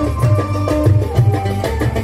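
A gambus ensemble playing an instrumental passage: an oud melody over a repeating pattern of low hand-drum beats.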